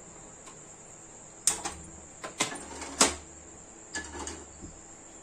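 Several sharp knocks and clinks of cookware being handled on a stovetop, the loudest about three seconds in, over a steady faint high-pitched tone.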